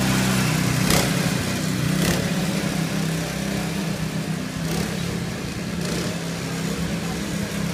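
Small petrol go-kart engines running steadily as karts lap the track, a steady engine drone with a few brief noises over it.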